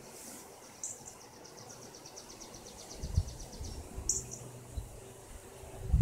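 Summer garden ambience. A fast, high-pitched trill of even chirping pulses runs for the first three seconds or so, with a couple of short sharp chirps over it. From about three seconds in, low gusts of wind buffet the microphone, and these are the loudest sound.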